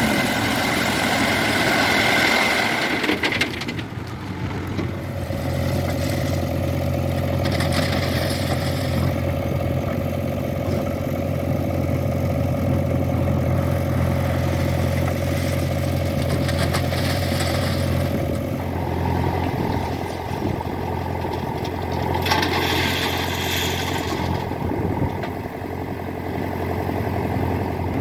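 Diesel engine of heavy machinery running steadily with a low even hum. About four seconds in, a higher whine drops away and a deeper, steadier engine note takes over, with a few brief louder hissing stretches later on.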